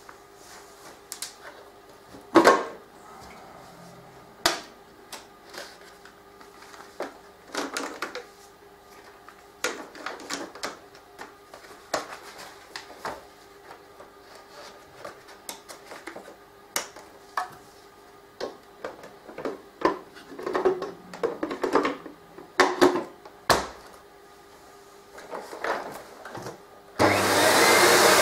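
Scattered plastic clicks, knocks and paper rustling as the dust-bag compartment of an ETA 0428 upright vacuum cleaner is opened and a paper dust bag is fitted. Near the end the 900 W motor switches on suddenly and runs steadily, much louder than the handling.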